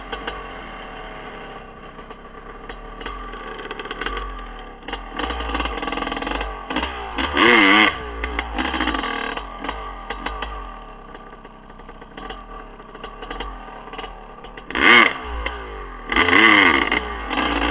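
Two-stroke dirt bike engines, a Honda CR500 and a Suzuki RM85, revving up and down while riding. Loud bursts of throttle come about seven and a half seconds in and twice more near the end.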